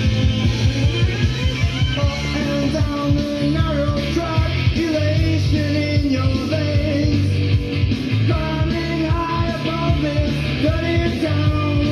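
A song with a singing voice over a steady beat, played from a vinyl record on a Denon DP-45F turntable fitted with a Shure M97xE cartridge.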